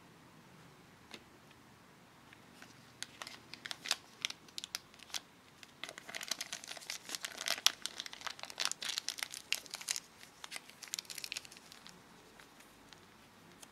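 Thin plastic squeeze bag crinkling as it is handled and twisted shut around pink candy batter, in quick irregular crackles that are busiest in the middle and thin out near the end.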